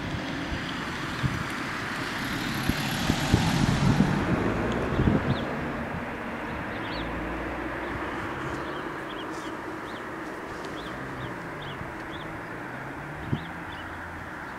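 Outdoor roadside ambience with a steady rush of wind and traffic noise, swelling with a few low knocks a couple of seconds in, then settling; small birds chirp repeatedly in the second half.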